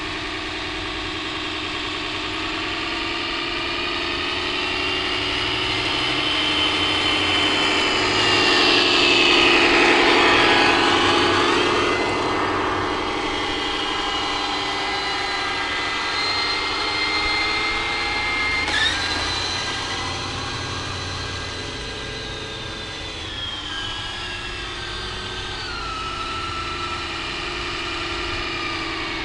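Engine-like running sound of a radio-controlled Peterbilt semi truck: a steady drone that rises in pitch and swells to its loudest about ten seconds in, then holds, with a few sudden steps in pitch like gear changes later on.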